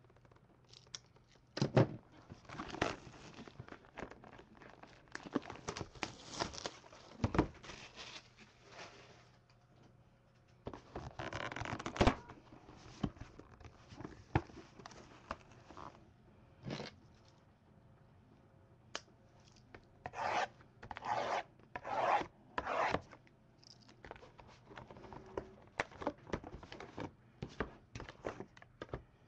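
Shrink-wrap being sliced and torn off a sealed trading-card box, then the cardboard box being opened and handled: a run of short crinkling, tearing and rubbing sounds with a few sharp scrapes, in uneven clusters with quieter gaps between.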